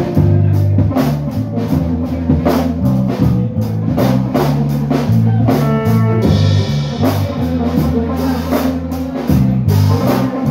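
A live two-piece band of electric guitar and drum kit playing loudly: a low, shifting guitar riff over steady drum hits. About six seconds in, a brighter cymbal-and-chord wash joins.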